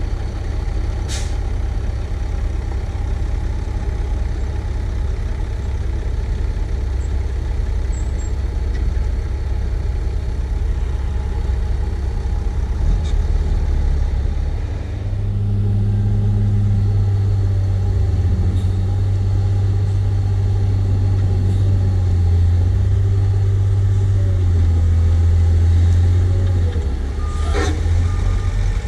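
Heavy diesel engines running steadily: first a dump truck idling as its tipper body empties, then from about halfway the JCB 436ZX wheel loader's Perkins 1006.6T six-cylinder diesel working louder and deeper. Near the end comes a brief clatter of soil dropping from the loader's bucket into the truck bed.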